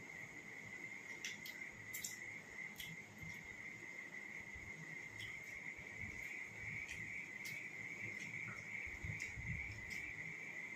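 A steady high-pitched whine or trill, with faint scattered clicks of fingers and food against steel plates as rice is eaten by hand.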